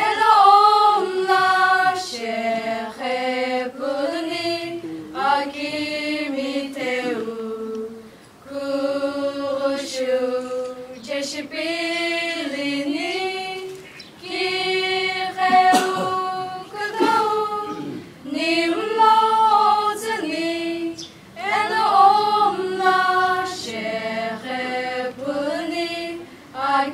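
A small group of young voices, mostly girls, singing a song together unaccompanied, in phrases of held notes broken by short pauses for breath.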